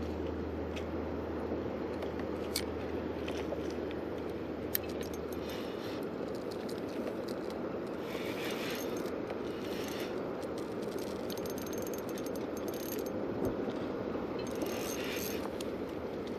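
Scattered clicks and a few brief ratcheting, gear-like bursts from a spinning fishing reel being handled and cranked, over a steady low rush.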